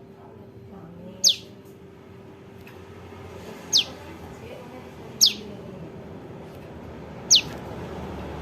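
Four sharp, high calls of a young prenjak lumut, each a quick downward sweep, spaced one to two seconds apart. This fledgling call is used as a lure for trapping. A faint steady hum runs underneath.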